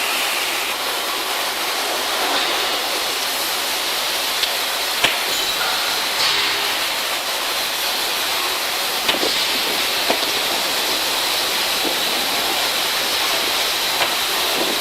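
Gas cutting torch flame hissing steadily while cutting, with a few faint pops scattered through it.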